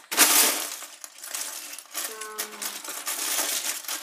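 Loose plastic Lego bricks clattering and rattling as hands dig through a big plastic storage bin full of them, with a loud burst of rattling right at the start.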